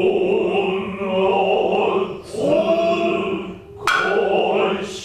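Noh chant (utai): drawn-out sung lines with slow bends in pitch. A single sharp drum knock falls about four seconds in.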